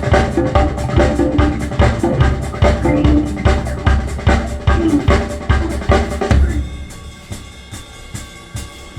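Recorded music played over Bowers & Wilkins 803 D4 floor-standing loudspeakers in a demo room, led by a drum kit with bass drum and snare keeping a steady fast beat. About two-thirds of the way in the drums drop out, leaving held tones.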